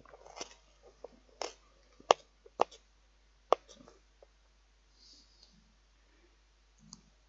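Irregular sharp clicks and crackles of dry onion skin being picked and peeled off an onion by hand, the loudest a little after two seconds and about three and a half seconds in.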